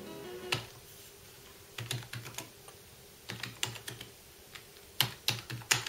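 Typing on a computer keyboard: key clicks in short bursts of a few strokes each, with pauses between.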